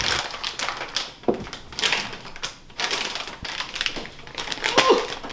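Plastic packaging crinkling and crackling as a plastic pouch of detergent pacs and a plastic detergent bottle are handled and set down on a cluttered table, with irregular clicks and light knocks.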